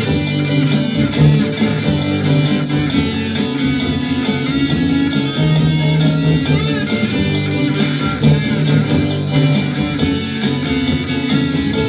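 Instrumental break of a 1967 psychedelic pop record: the band playing on with a steady beat and no singing.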